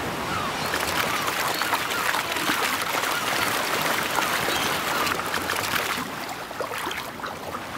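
Water rushing and splashing as dolphins surge together up a mud bank to drive fish out of the water, easing off about six seconds in.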